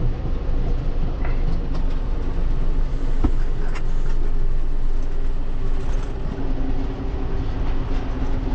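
Tractor engine running steadily under load while it pulls a hay wagon, with rattles and an occasional knock from the wagon and hitch.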